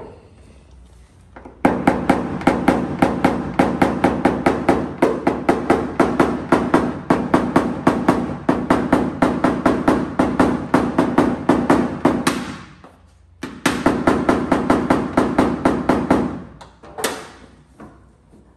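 Rapid light hammer taps on a knockdown tool held against a pickup truck's bed-side sheet metal: paintless dent repair, tapping down high spots in the panel. About five or six taps a second in one long run, a short pause, then a second shorter run.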